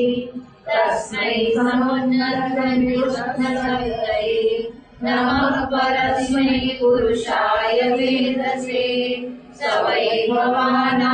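A woman's voice chanting Sanskrit verses in a melodic sung recitation, holding long notes with a short breath pause every four to five seconds.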